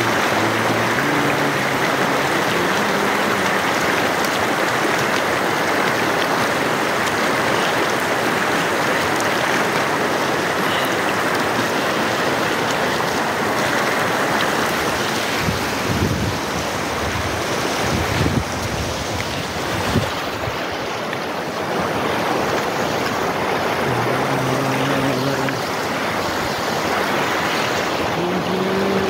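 Fast mountain river rushing over rocks: a loud, steady wash of white water. A few low gusts of wind on the microphone about halfway through.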